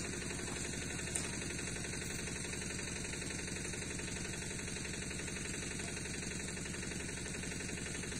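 An engine idling steadily, with an even, rapid pulse and a single sharp click about a second in.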